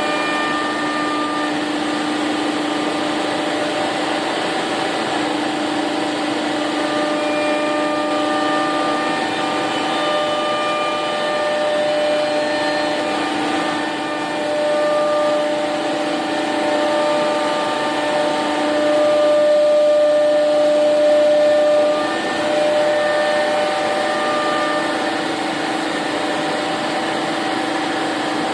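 SCM Accord 20 CNC router running, its electrospindle giving a steady whine over a rushing noise, with higher tones that shift and come and go every second or two.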